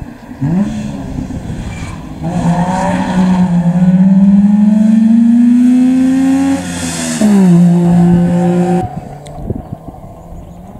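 Wartburg 353 rally car's three-cylinder two-stroke engine accelerating hard past, its pitch climbing in each gear with shifts at about two and seven seconds in. The engine sound cuts off abruptly near the end.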